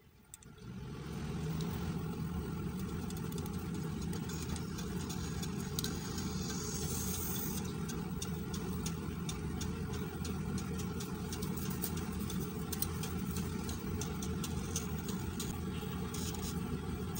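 Small loudspeaker under test giving out a steady, rough rumbling buzz with crackle through it, starting about a second in.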